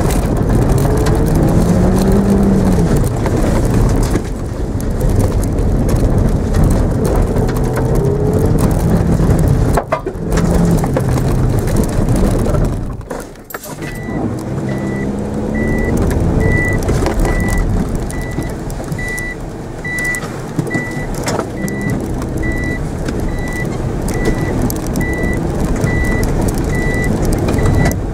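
Mitsubishi Mirage's engine heard from inside the cabin, revving up and falling back again and again as it is driven hard around a grass course, over rough tyre and body noise. About halfway through a high beep starts and repeats evenly, a little faster than once a second.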